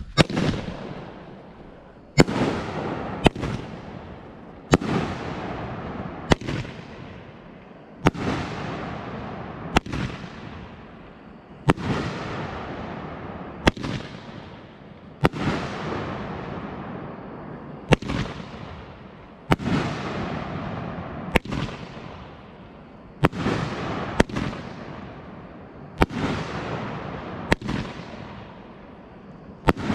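A 2-inch-bore, 12-shot 500 gram firework cake (BIG Fireworks' Spyder) firing shell after shell, about one every two seconds. Each shot is a sharp boom followed by a fading hiss from the brocade crown and gold willow breaks.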